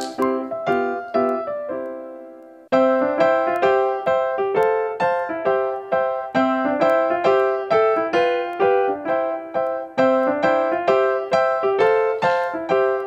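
Background music: a light piano-style keyboard tune played in steady, evenly paced notes. It fades out about two seconds in and starts over a moment later.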